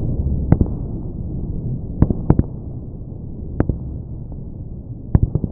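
Fireworks display: a handful of sharp bangs and pops, about seven spread irregularly over the few seconds, over a continuous low rumble.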